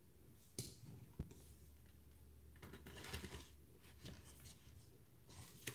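Faint clicks and scraping of a thin pry tool working along the plastic case seam of an HP laptop: two sharp clicks in the first second or so, then a short scratchy stretch about three seconds in, and a few more small clicks near the end.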